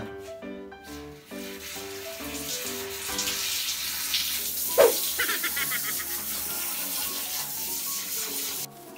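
Water spraying from a handheld shower sprayer onto a cat's fur in a sink, wetting the coat before shampooing. The spray starts about a second and a half in and cuts off suddenly near the end, over background music. There is a brief pitched sound about five seconds in.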